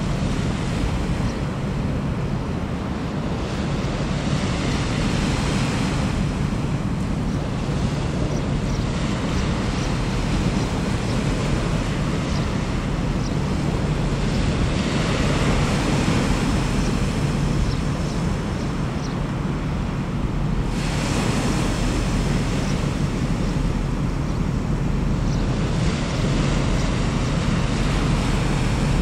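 Small waves washing up a stony beach, swelling and easing every few seconds, with wind on the microphone. Under it runs a steady low drone from the passing general cargo ship's engine.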